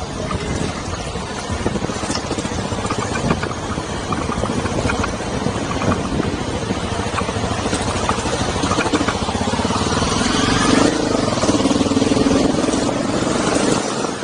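Honda CRF250 Rally's single-cylinder engine running as the motorcycle rides along a road, getting louder in the last few seconds.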